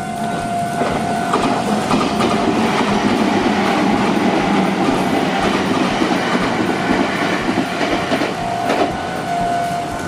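A red Meitetsu electric train passing on the tracks: a swelling rumble of wheels on rail with clicks as the wheels cross rail joints. It builds about a second in and fades near the end.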